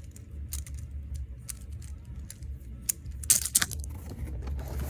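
Small plastic fidget toys and their packaging being handled: scattered clicks and light rattles, with a louder clatter about three and a half seconds in.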